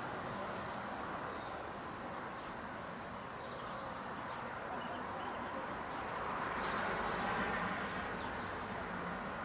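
Steady outdoor background hum with a few faint bird chirps.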